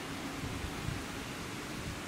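Steady open-air hiss with the faint hum of an electric multiple-unit train pulling away, fading out about half a second in.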